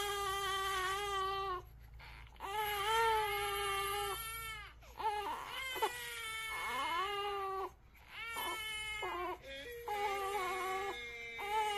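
Newborn baby crying in long wailing cries that break off twice and restart, overlapped by a phone speaker playing back a recording of the same baby crying.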